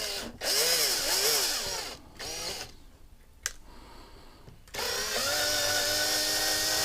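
Small power drill with a larger bit drilling out a rivet in a diecast Matchbox truck. It first runs with its pitch wavering as the bit bites. Then comes a short burst and a click, and near the end a steadier run.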